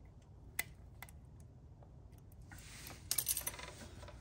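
Light clicks and metallic clinks of a Suzuki LT-Z400 water pump being handled and tried by hand, with a short scraping rattle about three seconds in.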